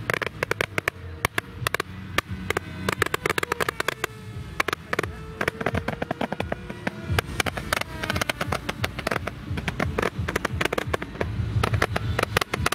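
Hand-held multi-shot firework firing a rapid, irregular string of shots into the air: many sharp pops and cracks a second, without a break.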